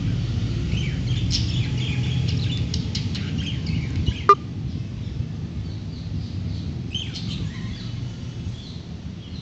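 Pet budgerigars chirping in short, scattered calls, with one sharp click about four seconds in, over a steady low hum.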